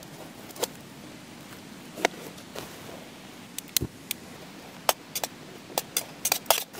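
Knife and utensils tapping and knocking on a cutting board during food preparation: scattered sharp taps, coming faster near the end, over a steady faint hiss.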